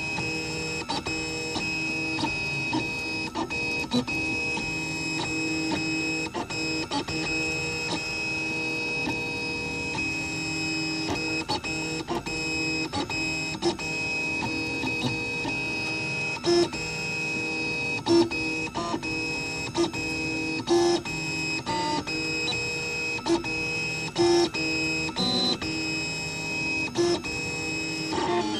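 3D printer's stepper motors running: a steady whine of several fixed pitches, with frequent irregular clicks and short louder blips of tone.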